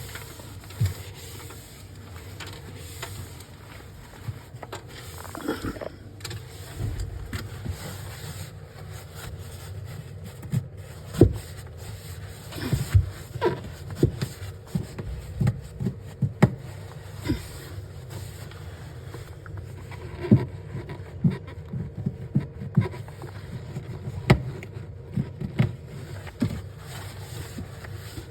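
Irregular knocks, taps and clatters of containers and shelves being handled while a fridge is cleaned out, over a steady low hum. The knocks come only now and then at first, then thick and fast from about a third of the way in.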